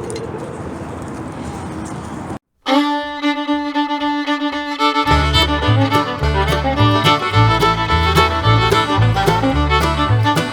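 Background music: a fiddle tune that starts suddenly after a brief cut, with guitar and a bouncing bass line coming in about halfway through. Before the cut there is only a steady outdoor background hiss.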